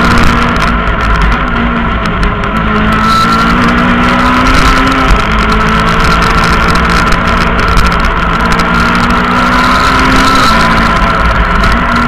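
Rally car's engine heard from inside the cockpit, running hard under load. Its pitch climbs steadily through each gear and drops back at each upshift, a few times, with a steady high whine over it.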